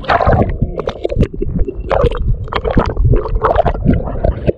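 Water sloshing and gurgling against a camera held half-submerged at the surface, with irregular splashes as someone wades through shallow water.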